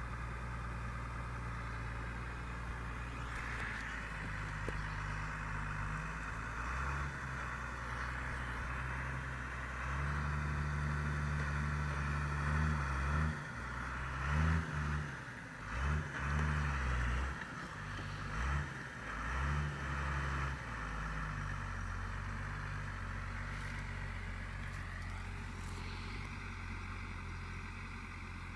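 Deutz-Fahr Agrotron 6.45 S tractor's diesel engine running steadily while ploughing. Between about ten and twenty seconds in, the engine note shifts up and down and swells in loudness several times before settling back to a steady run.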